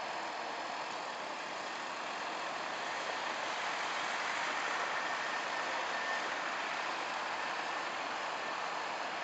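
Steady vehicle noise on a snowy road, an even hiss with no distinct knocks or revs, from the tractor, the lorry and passing traffic.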